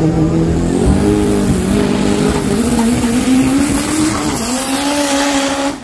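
Drag-racing car's engine at high revs, its pitch climbing slowly in a few small steps, over loud tyre squeal.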